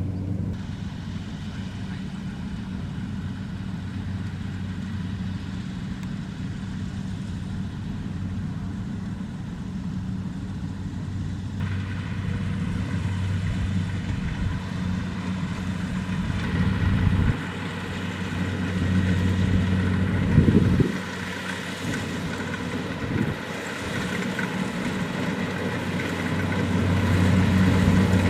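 Kubota DC-70 Plus combine harvester's diesel engine running steadily under load, with the whine of its cutting and threshing machinery. A higher whine joins partway through, there are a few brief swells, and it grows louder near the end.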